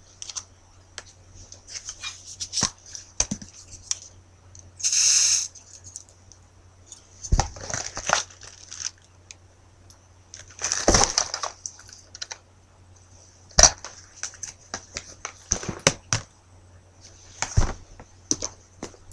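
Paper cue cards and a cardboard product box handled close to a webcam microphone: scattered clicks, taps and rustles, with louder rustling bursts about five seconds in and near eleven seconds. A steady low electrical hum runs underneath.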